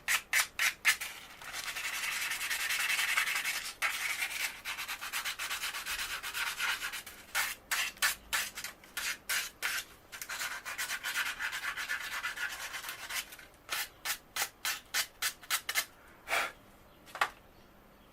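Sandpaper rubbed back and forth by hand over a fishing rod tip, in quick strokes about three or four a second with stretches of continuous rubbing, thinning to a few separate strokes near the end. It is roughening (keying) the surface so the glue will grip.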